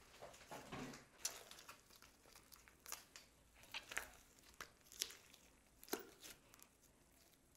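Glossy slime mixed with makeup being stretched, folded and squeezed by hand, giving soft crackles and sharp pops about once a second. It quietens near the end.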